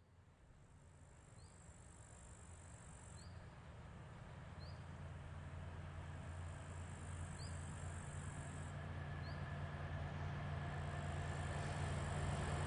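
Train approaching, its low rumble growing steadily louder. Crickets trill in a high steady drone that stops and starts, and a short rising bird chirp repeats about every second and a half.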